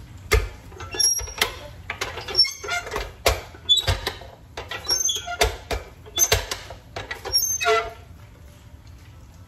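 Large hinged tortilla press being worked by its lever handle: repeated sharp knocks and clacks of the lid and lever, with short squeaks, stopping about eight seconds in.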